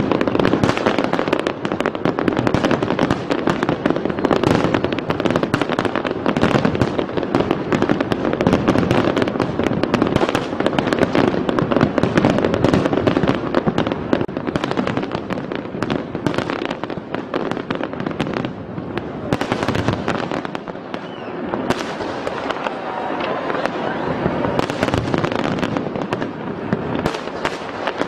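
Aerial fireworks shells bursting in a dense, continuous barrage of bangs and crackles. The barrage thins briefly about twenty seconds in, then builds again.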